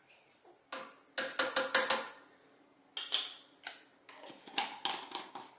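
Metal measuring spoon clinking and tapping against the jar and blender jar while spooning powdered peanut butter, with a quick run of taps about a second in. Near the end come more knocks and clicks as the jar's lid goes back on.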